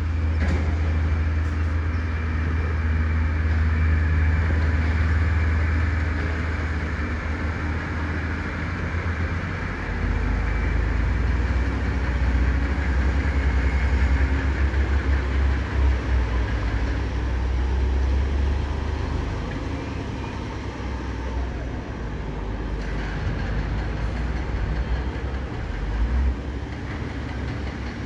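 Komatsu 210LC excavator's diesel engine running under load as it digs and loads soil, a deep steady drone whose level rises and falls.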